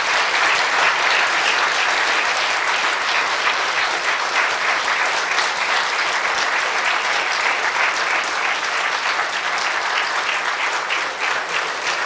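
A large audience applauding: dense, steady clapping that eases slightly near the end.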